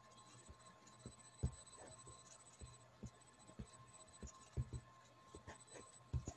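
Faint room tone with a steady low electrical hum and a thin high whine, broken by scattered soft clicks and knocks at irregular moments.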